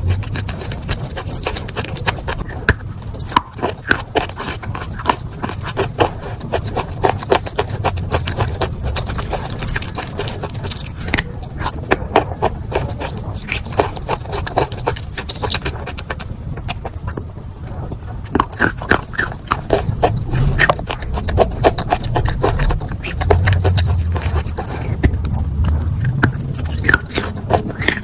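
Wet chalk being bitten and chewed close to the microphone: a dense, irregular run of sharp crunches over a low rumble.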